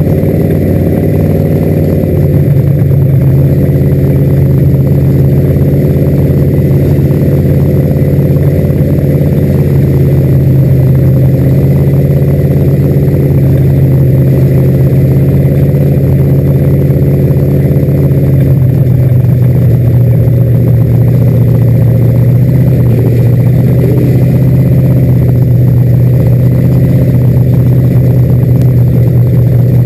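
Dirt-track race car engine running steadily at low speed, heard loud from inside the cockpit, its note easing slightly lower about eighteen seconds in.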